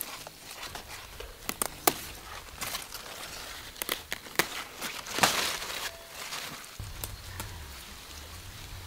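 Leafy green stalks snapped off by hand with sharp cracks, with leaves rustling and crumpling, several snaps over the first five seconds or so, then quieter.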